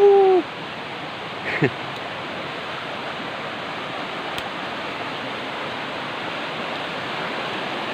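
Creek water rushing over rocks: a steady hiss that grows a little louder near the end. A short falling vocal sound comes about a second and a half in.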